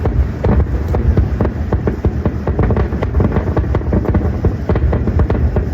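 Fireworks going off in rapid succession: many sharp crackling pops and bangs, irregular and overlapping, over a steady low rumble.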